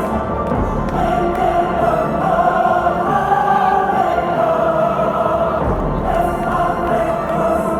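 Loud early-90s dance music from a DJ set: a breakdown of long, held choir-like chords with the bass drum dropped out, the deep beat coming back about six seconds in.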